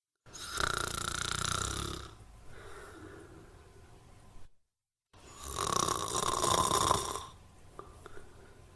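Snoring: two loud snores about two seconds long, each followed by a softer, longer breath. Between them there is a half-second of dead silence.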